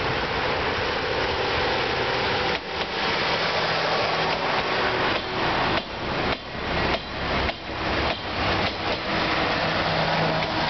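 A diesel railcar train passing close by: engine noise throughout, with a run of wheel clacks over the rail joints from a few seconds in until near the end as the cars and open wagons go past.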